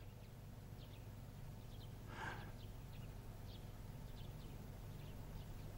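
Quiet background hum with a soft sigh about two seconds in, and a few faint, short high chirps scattered through.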